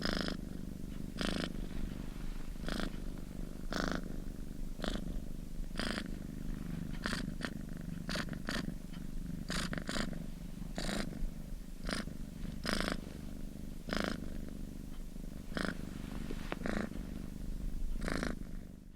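Domestic cat purring steadily: a continuous low rumble with a breathy swell roughly once a second.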